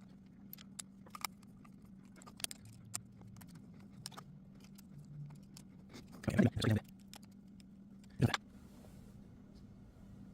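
Light metallic clicks and taps of a hex key and the handlebar stem clamp being handled, with two louder clunks about six and a half and eight seconds in, over a faint steady hum.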